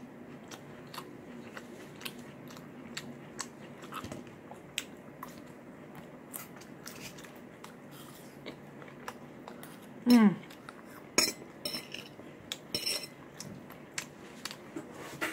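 A metal fork clicking and scraping on a plate, with close-up chewing of a breakfast mukbang meal. About ten seconds in comes one short vocal sound from the eater, falling in pitch, which is the loudest sound here.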